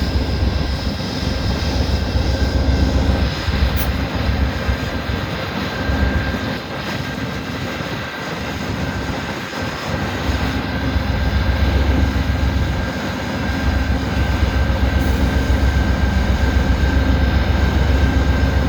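Amtrak diesel locomotive running while the train stands at the station: a steady engine drone with a few constant tones, and wind gusting hard on the microphone.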